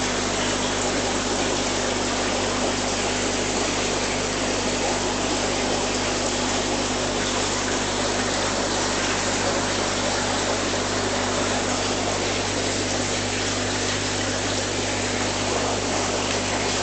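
Aquarium pump and water circulation running: a steady rush of moving water with a constant low hum underneath, unchanging throughout.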